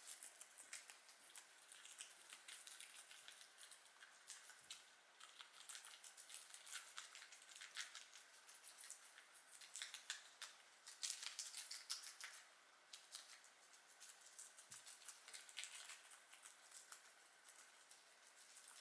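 Guinea pigs chewing lettuce and carrot: faint, rapid crunching clicks in uneven runs, busiest about ten to twelve seconds in.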